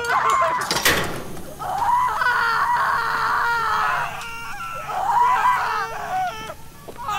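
Voices screaming, wavering high cries in two long stretches, with a short noisy burst about a second in.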